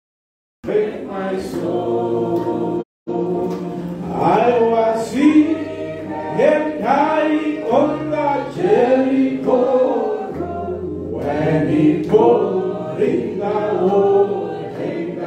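Congregation singing a song together, voices in unison with a short break about three seconds in.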